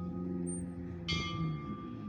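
San Xavier Mission's church bell struck once about a second in, its tone ringing on over the fading ring of the previous stroke. A low steady hum runs underneath.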